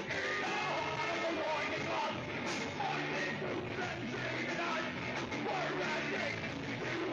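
Punk rock song playing, with shouted vocals over a dense, steady band sound.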